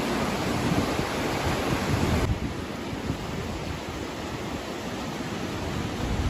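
Storm wind gusting and buffeting the microphone, with a rush of surf. About two seconds in the sound changes abruptly to a duller, quieter rush.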